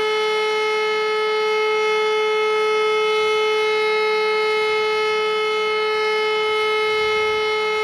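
E57 electromechanical civil defence siren wailing at full speed, holding one steady pitch with strong overtones.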